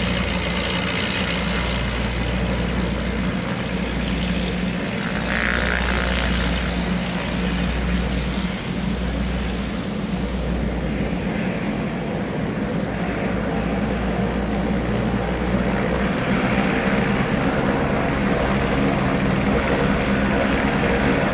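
Piper PA-34-220T Seneca's twin turbocharged piston engines running steadily at taxi power, propellers turning, as the plane taxies away.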